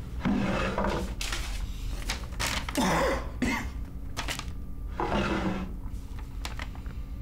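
A man breathing heavily in several strained, shaky breaths, three of them with a groan in the voice, as in quiet sobbing.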